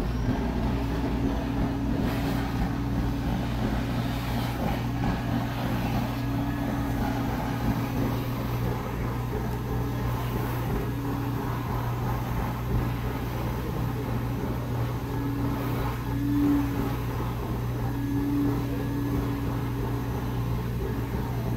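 Build-A-Bear stuffing machine's blower running, blowing fiberfill into a teddy bear held at its nozzle: a steady hum, with a higher note that comes and goes and swells a few times in the second half.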